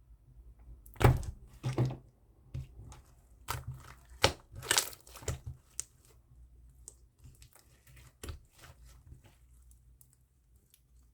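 Slime being squeezed and stretched by hand, giving irregular sticky pops and crackles. The loudest come about a second in and again around four to five seconds in, then they thin out near the end.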